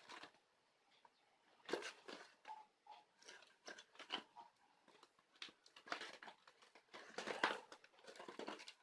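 Faint scattered rustling, tapping and scraping of a product box being handled and turned over, as someone looks for the way to open it.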